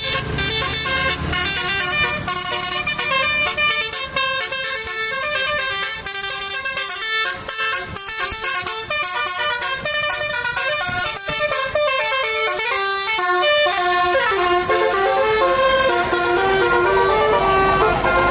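A bus's 18-trumpet telolet basuri musical air horn playing a melody. Quick stepping notes sound for most of the time, then a downward glide about 14 seconds in leads into longer held notes.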